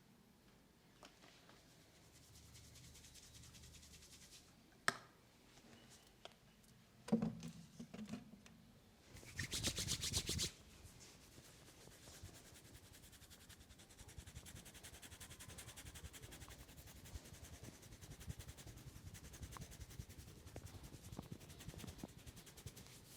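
Head massage: hands rubbing and scratching on hair and scalp. There is a sharp click about five seconds in, a few thumps, a louder burst of fast rubbing around ten seconds, then steady fast rubbing.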